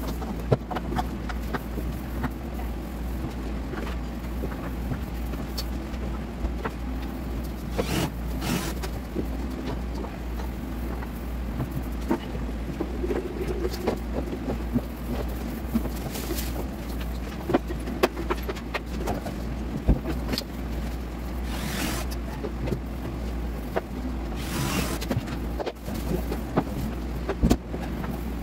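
Steady low hum under scattered light knocks and taps of hand work on wooden cabinet doors, with a few brief hissing swishes.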